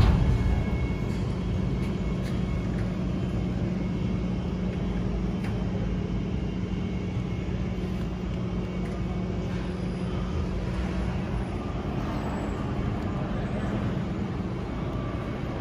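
Outdoor traffic noise with a steady engine hum that stops about three quarters of the way through.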